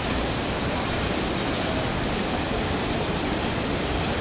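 Large vertical-jet fountain splashing into its basin: a steady rush of falling water.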